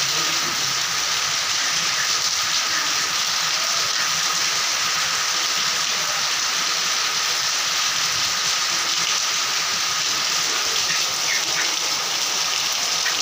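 Heavy rain falling steadily, with water streaming off the edges of corrugated metal roofs. An even, unbroken hiss that holds the same level throughout.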